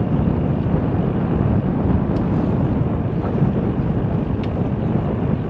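Steady wind buffeting the microphone, a dense low rumble with no let-up, with a couple of faint high ticks about two and four seconds in.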